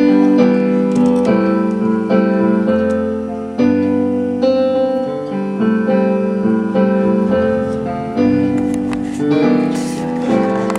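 Electric piano playing an instrumental intro: sustained chords over low bass notes, changing about once a second.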